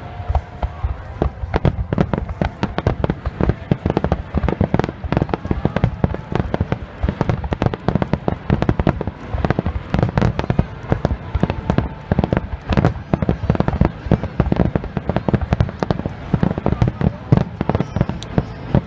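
Fireworks display finale: a dense, continuous barrage of shell bursts, many sharp bangs a second overlapping one another.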